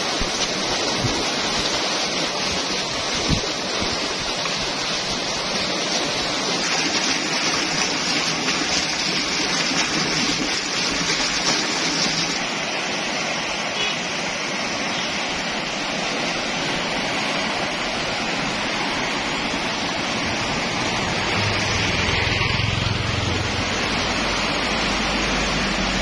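Floodwater rushing and churning past a concrete bridge embankment: a steady wash of turbulent water.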